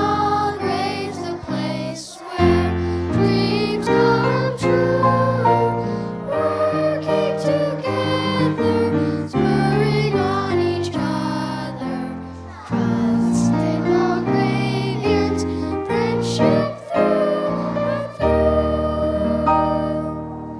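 Two children singing a song with instrumental accompaniment, the melody carried over sustained chords.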